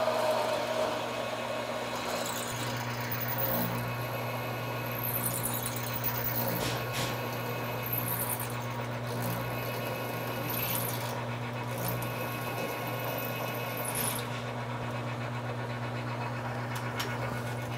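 Small metal lathe running with a drill bit fed into a spinning stainless muzzle brake, boring the bullet's pilot hole: a steady motor hum with intermittent high-pitched squeals from the cutting drill, from about three seconds in until about fourteen seconds in.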